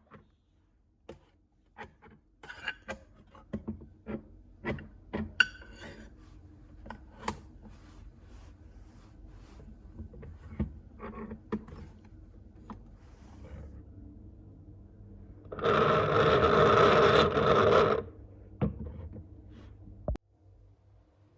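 Scattered clicks and knocks of parts of an old coffee grinder being handled and fitted, then a loud, steady rasping noise for about two and a half seconds, followed by a few more knocks.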